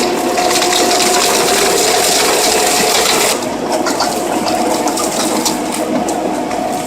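Pezzolato PTH 1300/1500M stump shredder running under load, a loud steady mechanical noise with a whine, grinding stumps. About three seconds in it drops somewhat in level and turns to a scatter of sharp cracks and clatter.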